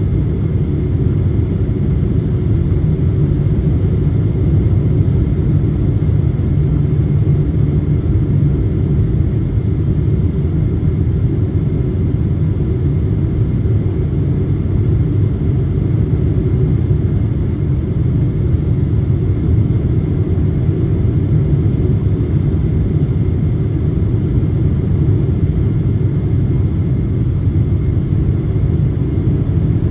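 Steady low rumble of engine and airflow noise inside the cabin of a Boeing 777-200 twinjet descending on approach to land, heard from a window seat beside the wing and engine.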